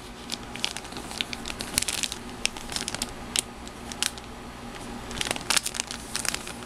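Clear plastic bags crinkling as the model-kit sprues inside them are handled and turned, with irregular sharp crackles throughout.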